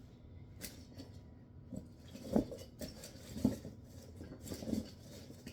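Small plastic fidget toys being handled: a few light clicks and soft knocks, about one a second.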